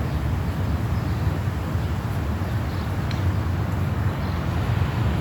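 Wind buffeting a phone microphone outdoors: a steady low rumble that flutters unevenly.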